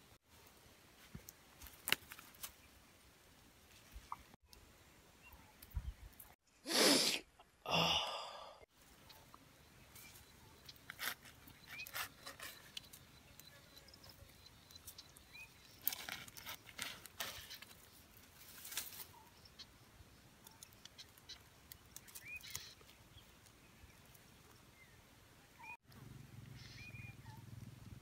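Scattered clicks, taps and rustles of hands working food on a wooden chopping block: herbs and a charred roasted bird being handled and pulled apart. Two louder rustling bursts of about half a second each come about seven and eight seconds in.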